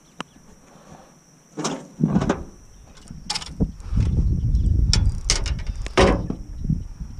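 Several sharp knocks and clatters on a small fishing boat over a low rumble, starting about a second and a half in, while a hooked fish is played on rod and reel.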